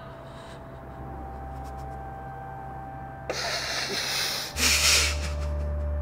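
A man with tape over his mouth breathing hard through his nose: two heavy, noisy breaths in the second half, over a low steady drone.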